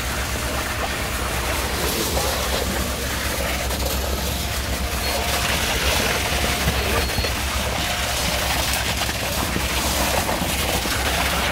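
Heavy diesel machinery of a concrete delivery running steadily during a slab pour, a constant low drone under an even rushing noise.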